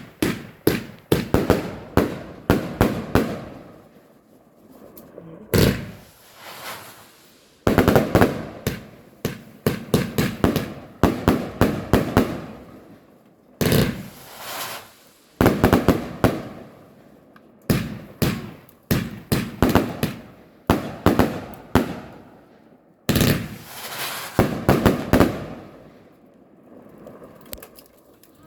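Fireworks going off overhead in volleys of rapid sharp bangs, several a second, each volley lasting a few seconds with brief lulls between them.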